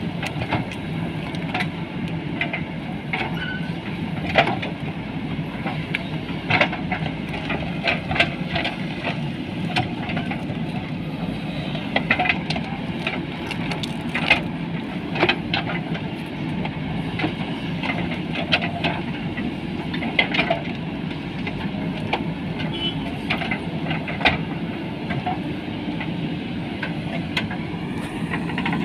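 Two JCB backhoe loaders' diesel engines running steadily under load as their backhoe buckets dig out and lever up a tree stump, with frequent sharp knocks and clanks from the buckets and arms working against the stump and earth.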